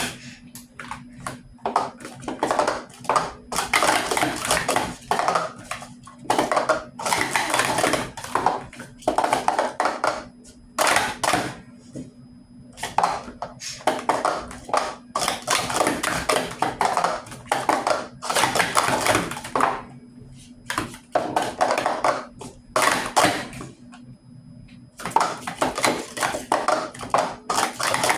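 Plastic speed cube being turned fast, a dense run of clicks and rattles in long bursts with brief pauses between them.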